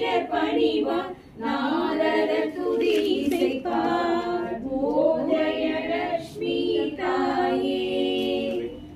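Women's voices singing a devotional song together without instruments, in phrases with short breaths between them.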